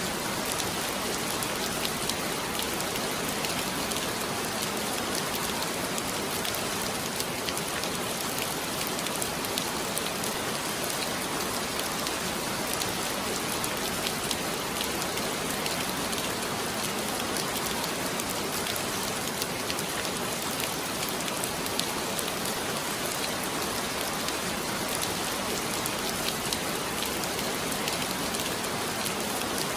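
Heavy rain falling steadily, a dense hiss with many individual drops pattering on a surface.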